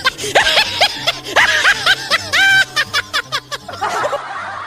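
High-pitched snickering laughter in quick repeated bursts, over background music with a low, stepping bass line. About four seconds in, the laughter gives way to a softer, hazy sound.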